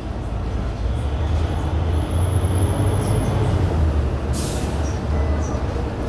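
Cabin of a King Long city bus pulling away and running at low speed: a steady low engine and road drone, with a short high hiss about four seconds in.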